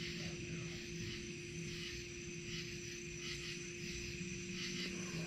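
Night insects, crickets among them, chirping in a steady pulsing chorus, over a faint steady low hum.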